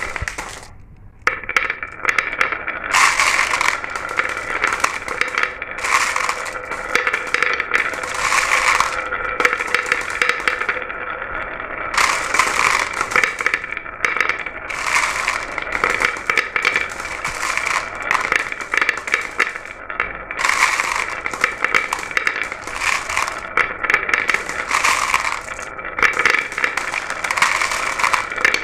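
Glass marbles rolling and clicking down a marble run: a continuous clatter with a steady ringing hum, swelling every one to three seconds, with a brief lull about a second in.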